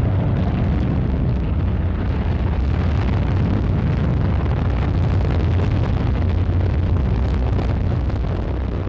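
Ariane 5 rocket's solid boosters and main engine firing at liftoff: a loud, steady, deep noise full of crackle that begins to fade near the end.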